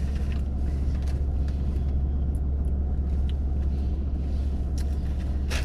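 Car engine idling, a steady low hum heard from inside the cabin, with a few faint clicks over it.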